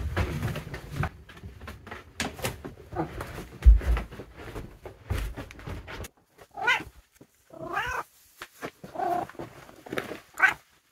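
A domestic ginger cat meows four times in the second half, about a second apart, each call bending in pitch. Before that there are irregular rustles and a few low thumps.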